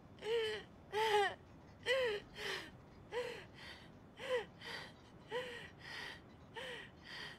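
A young woman's short, gasping vocal cries, about a dozen in a row, each a brief rise and fall in pitch, with breathy gasps between them and slowly getting fainter as she catches her breath after screaming.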